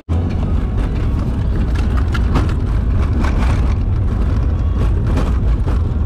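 Car on the move: a loud, steady low rumble of engine and road noise that starts suddenly.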